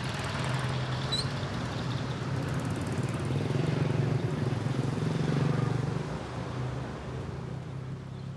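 Road traffic: a motor vehicle's engine drone that grows louder through the middle and fades toward the end, as of a vehicle passing.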